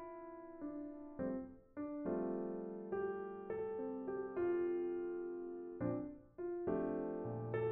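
Soft background piano music: gentle sustained chords with new notes struck every half second or so.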